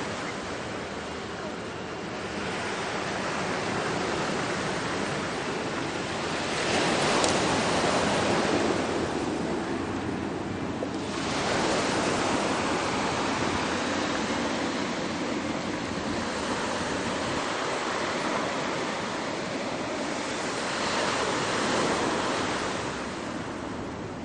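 Ocean surf: waves breaking and washing onto the shore in a continuous rush, swelling louder with several waves, the biggest about a third of the way in.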